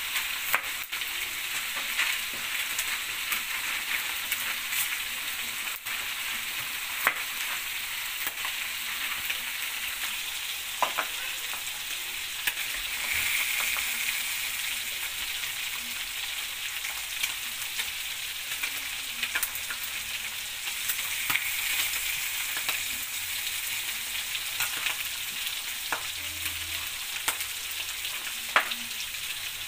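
Pork chops frying in oil in a pan: a steady sizzle broken by scattered sharp crackles.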